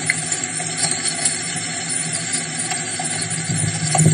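Rain falling on a waterlogged field, recorded on a phone: a steady hiss with scattered small ticks, and a low bump near the end.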